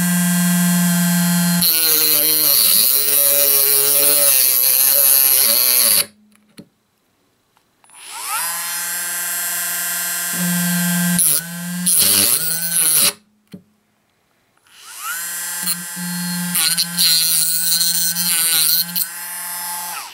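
Dremel rotary tool with a cut-off wheel running at high speed and cutting through metal, in three runs of about five seconds each with short silent pauses between; the whine sags and wavers in pitch as the wheel bites into the metal, rising again as the tool spins up and falling as it stops.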